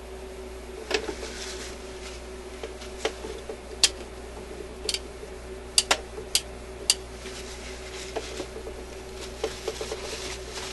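Small metal parts of an Admiral suitcase record player's changer mechanism clicking and clacking as they are handled by hand, about ten sharp clicks at uneven intervals. Soft rustling of a tissue as excess oil is wiped away, over a steady low hum.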